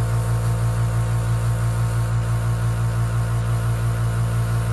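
Skyline single-piston mini airbrush compressor running with a quiet, steady hum. There is only a slight even pulse, because its small internal tank smooths the air delivery.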